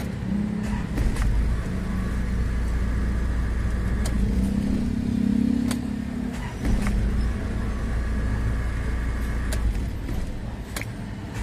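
Isuzu Trooper's diesel engine running, heard from inside the vehicle, with a few sharp clicks along the way; its leaking number 3 injector has just been repaired.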